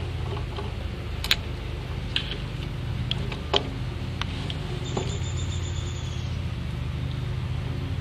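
Scattered light clicks of a folding hex-key set working the liquid-line service valve stem closed on an air-conditioner condensing unit, over a steady low hum. A faint high tone sounds for about a second midway.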